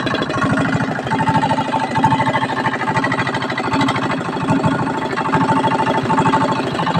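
Single-cylinder air-cooled 192F diesel engine running steadily at idle, its firing beat even, with a steady high-pitched tone over it.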